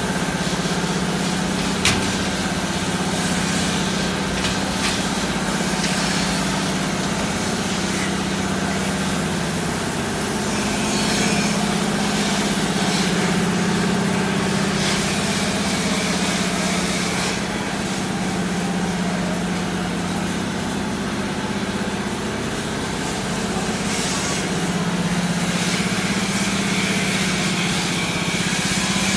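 Workshop machinery running with a steady hum under a constant hiss, with one sharp click about two seconds in.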